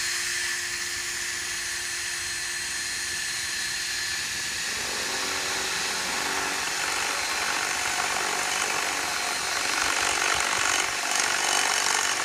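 Cordless drill running continuously with a metal bit boring into a hard drive's platter. A steady whine with a held tone for the first five seconds turns harsher after that, growing a little louder near the end.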